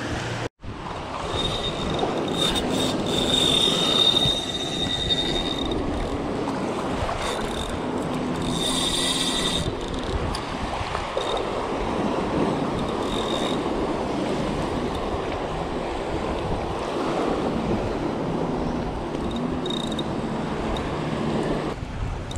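Surf washing in with wind buffeting the microphone, a steady rushing noise. A thin high whine comes and goes over it, mostly in the first ten seconds.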